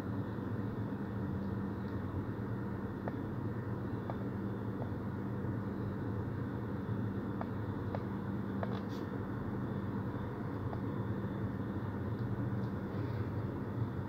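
Toyota HiAce van engine idling steadily, a low even hum heard from down in the driver's footwell, with a few faint clicks.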